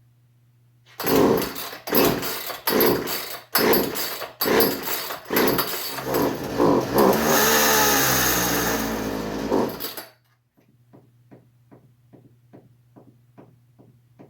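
Poulan Pro 210 two-stroke chainsaw engine being started: it fires and sputters in uneven bursts, catches and runs for a few seconds with its speed rising and falling, then suddenly dies. The stall shows that shortening the fuel pickup hose has not cured its running fault. Faint, regular ticking follows.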